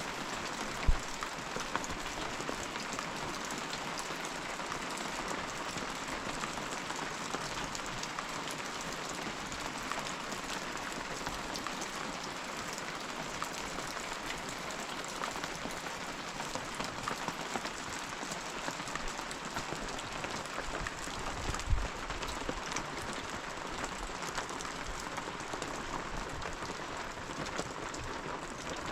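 Steady rain falling, a dense even hiss with many small drop ticks. Two short low thumps, about a second in and again about 22 seconds in.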